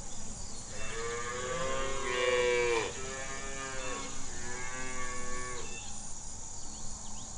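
Domestic cow mooing: three long, drawn-out moos, the first the longest and loudest and ending in a falling slide.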